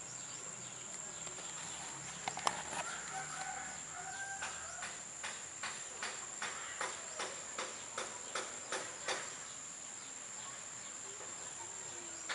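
Steady high-pitched insect buzz, crickets or similar, with a run of regular sharp clicks, about two or three a second, from about two seconds in to about nine seconds in.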